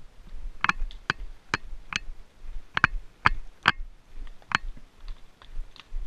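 Shod horse hooves walking over loose rock and gravel: sharp, uneven clacks and crunches, about two a second.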